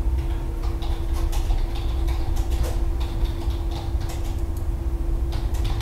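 Steady low hum of background noise with a constant faint tone, and a few faint clicks scattered through.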